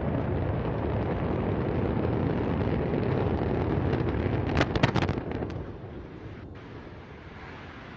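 Antares rocket launch: a steady low roar of the rocket engines. About four and a half seconds in comes a burst of sharp cracks, the loudest moment, and after it the roar drops away to a fainter rumble.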